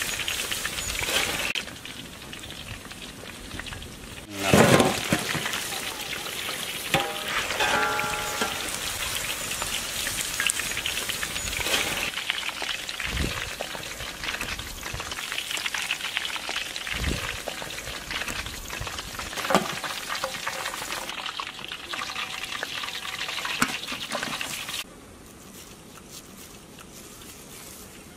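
Hot oil bubbling and crackling as battered chicken pieces deep-fry in an iron kadai, with a louder surge about four seconds in. The frying sound drops away to a quieter background near the end.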